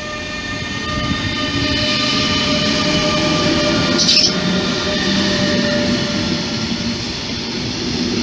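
Koleje Mazowieckie EU47 (Bombardier TRAXX) electric locomotive and its double-deck push-pull carriages passing close by. The locomotive gives a steady electric hum of several tones, which fades as the carriages roll past with wheel rumble. A brief high squeal comes about four seconds in.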